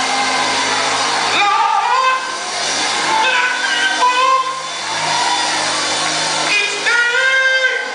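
Gospel music: a male singer leading on a handheld microphone, his sung lines rising and falling over steady sustained low chords from the accompaniment.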